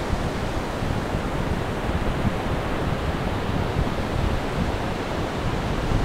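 Sea surf breaking some way out across a flat sandy beach: a steady, even rush of waves with no single break standing out.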